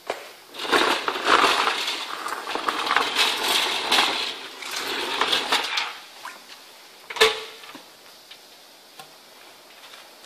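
Metal clattering and rattling from the stainless-steel tank of a wet-and-dry industrial vacuum holding oily liquid and chips, for about five seconds, then one sharp knock about seven seconds in.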